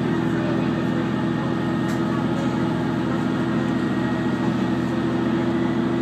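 Inside a KiHa 120 diesel railcar under way: the steady drone of its diesel engine at an even pitch, with wheel and running noise from the track.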